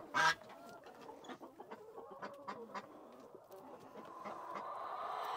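Chickens clucking softly at close range, with one louder call right at the start. A rough, noisy sound grows louder over the last second or so.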